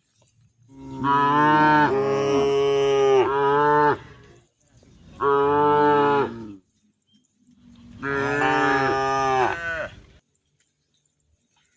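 A cow mooing three times, each moo a long call of a second and a half to three seconds, with short pauses between them.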